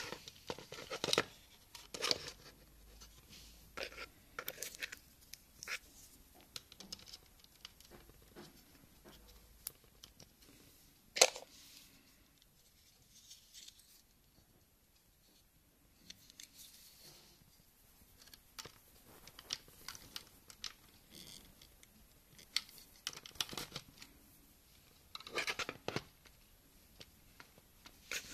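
Hands handling the plastic case of a LEGO Mindstorms EV3 brick while fitting a microSD card and plugging a USB Wi-Fi dongle into its port: scattered light clicks and scraping, with one sharp click about a third of the way in.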